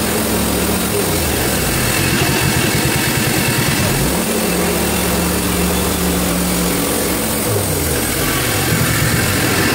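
Hud-son Homesteader HFE30 portable bandsaw mill running, its gas engine working under load as the blade saws a log. The engine pitch rises about four seconds in, holds, and drops again near the end.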